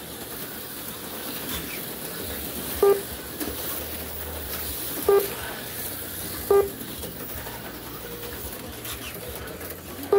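Four short, low electronic beeps, each at the same pitch, at uneven intervals: lap-count beeps from the slot car race-timing system. Underneath is the faint steady running of the HO slot cars.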